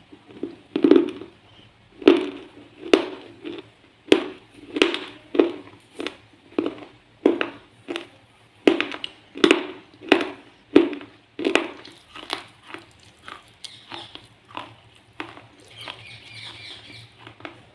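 Close-up crunching of a person chewing brittle slate pencil, about two crunches a second, growing softer in the last several seconds.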